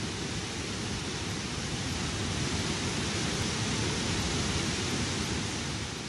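Steady rush of a heavy torrent of water, an even hiss with no tones in it, beginning to fade near the end.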